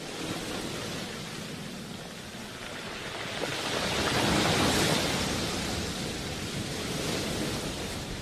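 Wind rushing and buffeting over the microphone as a steady noise, swelling about four seconds in and then easing.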